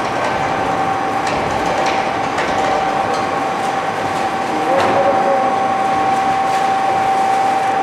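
Double-shaft shredder with twin 30 kW electric motors running steadily as its cutters chew through baled cardboard. A constant whine runs under the grinding, broken by occasional sharp cracks as the material is torn.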